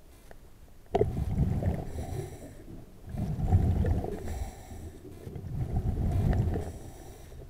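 Scuba diver breathing through a regulator underwater: three bursts of low rumbling exhaled bubbles, the first starting abruptly about a second in.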